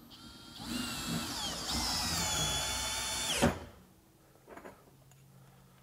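FLEX 24V cordless hammer drill driver whining under load as it drives a long 7-inch screw into pressure-treated lumber, its pitch sagging a little as the screw bites. It stops abruptly about three and a half seconds in, with a quick falling spin-down.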